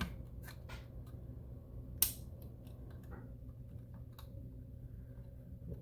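Small scattered clicks and taps of plastic parts being handled while ribbon cables are reconnected inside an opened FrSky Taranis X9D+ radio transmitter, with one sharp click about two seconds in.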